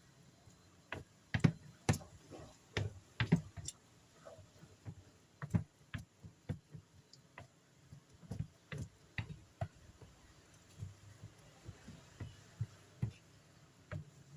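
Stone pestle (ulekan) knocking and grinding in a stone mortar (cobek) while sambal terasi is pounded: irregular sharp knocks, roughly one or two a second.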